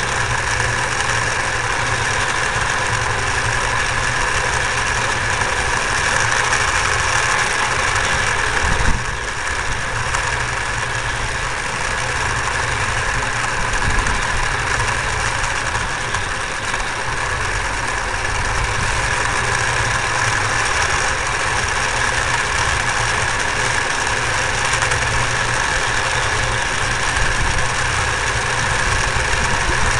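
Home-made ride-on model steam locomotive running along its track, heard from a camera riding on the train: a steady rumble with a continuous hiss over it.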